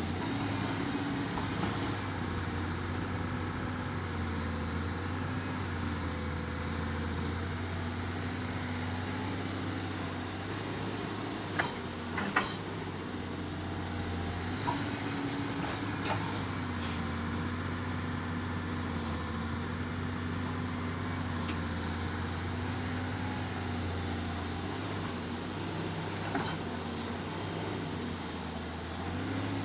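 An engine running steadily, its pitch wavering slightly, with a few sharp knocks about 12 seconds in.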